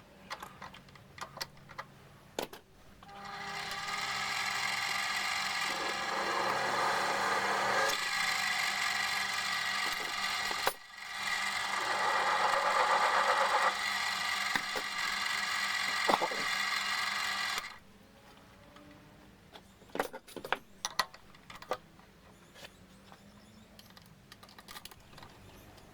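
A small machine tool running, most likely the mini lathe under cut: a steady whirring noise that stops for an instant about eleven seconds in, runs on, then shuts off. Light clicks and knocks of handling metal parts follow.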